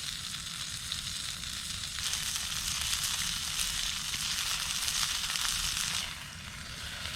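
Steak sizzling in a cast iron pan over an open campfire: a steady hiss with fine crackles. It swells about two seconds in and eases near the end.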